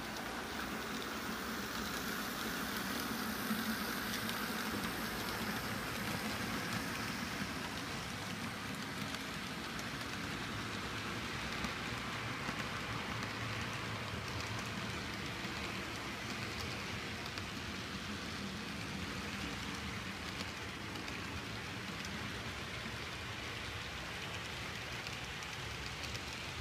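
Model freight train rolling past, its metal wheels on the track making a steady, even hiss. It is a little louder in the first several seconds, as the SOO Line locomotive goes by.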